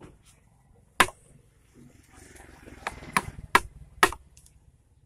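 A hatchet head strikes the handle of a wood chisel, driving it into a turned wooden bed leg. One sharp knock comes about a second in, then four more in quick succession in the second half.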